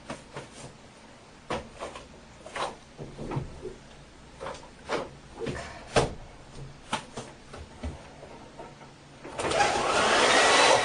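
Scattered clicks and knocks, then a hair dryer switched on about nine seconds in, its motor whine rising as it spins up into a loud, steady blowing noise.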